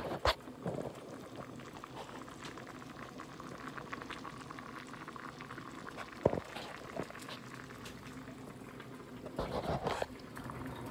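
A pot of chicken noodle soup bubbling at a boil, with a steady fine crackle of bubbles. Two sharp knocks come, one just after the start and one about six seconds in.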